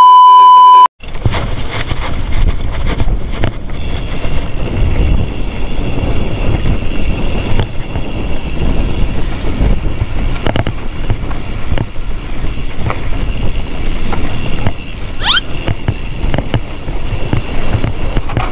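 A loud, steady TV test-pattern beep for about the first second, cutting off suddenly. Then a hardtail mountain bike riding fast down a rough dry dirt trail: wind rumbling on the camera microphone, with the rattle and clatter of tyres and frame over the ground and one short rising squeal late on.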